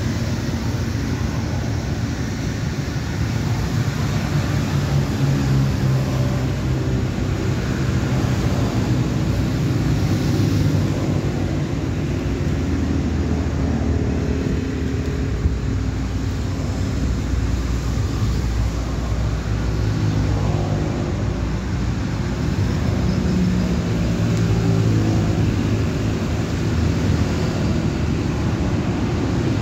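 Steady low rumble of road traffic, engine drone rising and falling slightly as vehicles pass.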